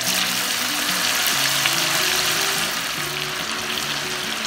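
Marinated chicken pieces sizzling hard in hot oil with curry leaves in an iron kadai, the sizzle swelling as the pieces go in. A background music melody plays under it.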